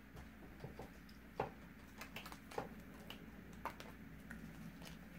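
Faint, scattered light clicks and ticks of broken screen-glass fragments and a gloved hand handling a shattered iPad digitizer in its frame, with sharper clicks at about one and a half, two and a half and three and a half seconds in.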